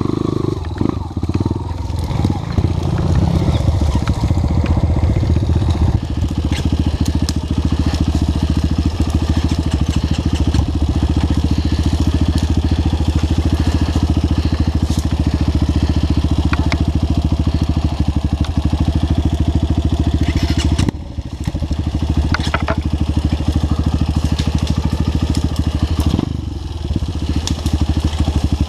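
Trail motorcycle engine running steadily under throttle, its sound dipping briefly twice in the last third.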